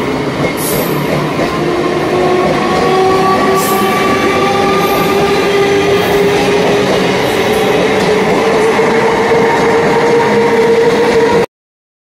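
Indian EMU local train running close by: a steady loud rumble of wheels on rail with an electric motor whine that rises slowly in pitch as the train gathers speed. The sound cuts off suddenly near the end.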